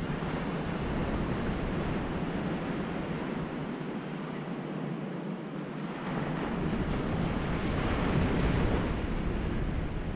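Ocean surf breaking and washing up the beach in a steady rush, swelling louder about two-thirds of the way in as a wave comes in, with wind rumbling on the microphone.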